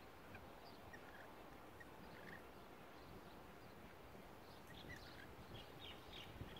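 Faint, short high chirps from rainbow lorikeets feeding in a tree: a few scattered at first, then coming more often in the last two seconds, over a low background rumble.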